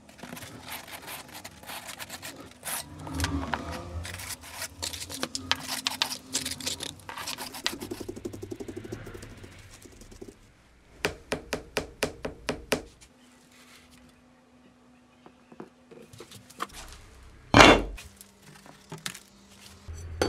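Scraping and small knocks as wet castable refractory is worked into the ceramic-wool lining of a stainless steel tube by gloved hand. About halfway through comes a quick run of about eight taps, about four a second, and near the end a single loud knock.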